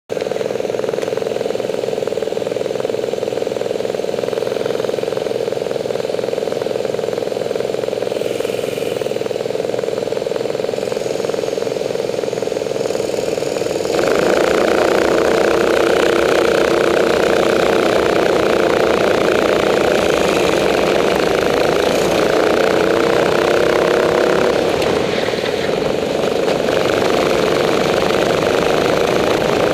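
Go-kart engines idling on the starting grid, a steady drone. About halfway through the karts pull away and the engine noise jumps suddenly louder, its pitch rising and falling as the kart accelerates and races.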